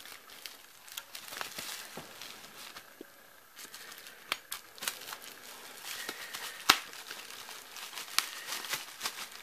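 Plastic bubble wrap crinkling and crackling as a utility knife saws through the packing tape on it, with scattered sharp clicks and one loud snap about two-thirds of the way through.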